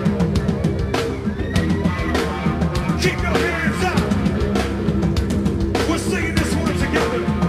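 Live rock band playing loudly, drum kit and guitars, with the singer's voice calling out into the microphone over the music.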